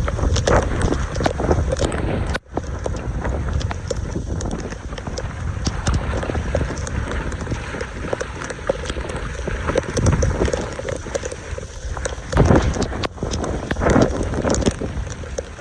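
Wind buffeting the microphone outdoors, with irregular knocks and scraping clicks throughout, typical of work clearing debris from a clogged roadside storm drain.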